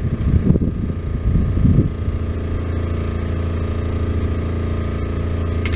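An engine idling steadily with a low hum, and wind buffeting the microphone during the first two seconds. A small click comes near the end.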